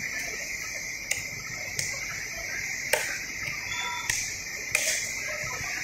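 A knife cutting tuna head on a wooden chopping block, striking the block five times at uneven intervals, over a steady high-pitched background hiss.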